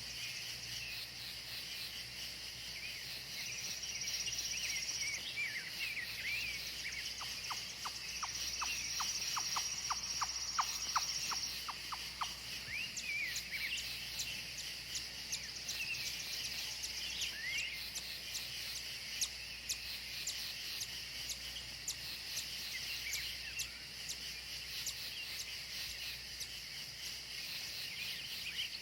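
Natural outdoor soundscape: a steady high chorus of insects such as crickets, with birds chirping on and off. A high insect trill sounds twice early on, and a run of quick ticks, about three to four a second, comes in the first half.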